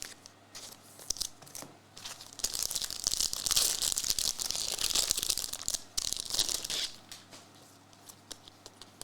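A trading-card pack's crinkly wrapper being torn open and crumpled: a dense crackling tear lasting about four and a half seconds in the middle, with light clicks of card handling before and after.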